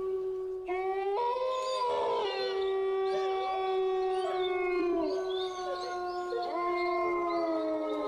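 Dogs howling at night: several long howls overlapping, each holding and sliding in pitch, with higher howls joining about a second in.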